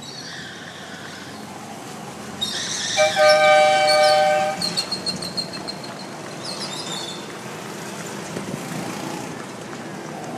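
An air horn on a mini semi truck blown once for about a second and a half: a steady two-note chord. Small mini-truck engines run underneath.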